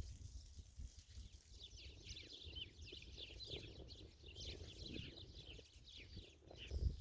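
Songbirds chirping and twittering: a busy run of short, quick, falling notes that starts about two seconds in. Under it is a faint low rumble, and a soft high hiss fades out in the first two seconds.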